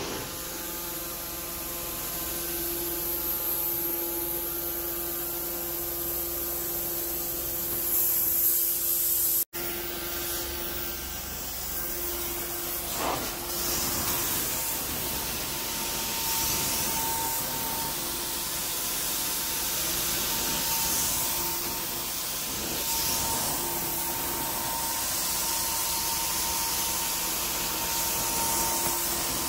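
Hot-water carpet extraction: the cleaning wand hisses as it sprays and sucks water back up while it is drawn across the carpet, over the steady whine of the extractor's vacuum. The sound drops out for an instant about a third of the way in.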